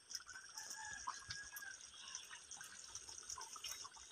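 Chicken and potato curry simmering in a pan: faint, scattered bubbling pops from the thick gravy.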